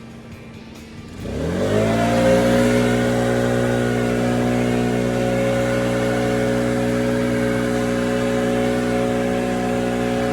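Cat 299D3 compact track loader's diesel engine throttled up from low idle about a second in, rising smoothly to high revs and holding steady there.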